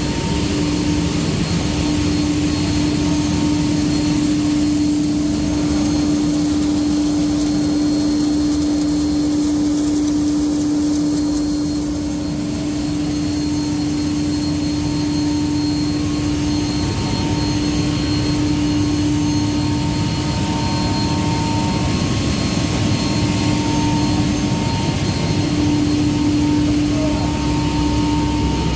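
Plastics extrusion line running in a factory workshop: a steady machine rush from motors and fans with a constant hum that drops out briefly a few times.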